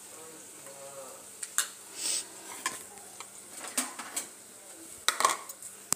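Dosa cooking in a pan with a faint steady sizzle, broken by several sharp clinks and scrapes of metal against the pan, the loudest cluster a little after five seconds in.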